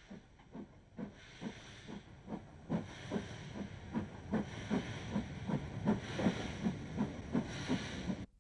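Steam locomotive exhaust chuffing in a steady rhythm as a train pulls away, over a steam hiss. The beats grow louder and a little quicker, roughly four a second by the end.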